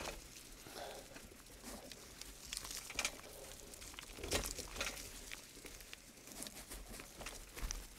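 Bianchi mountain bike rolling down a steep, rocky forest trail, heard through a camera mounted on its frame: irregular knocks and rattles as it jolts over the rough ground, with the tyres running over leaf litter.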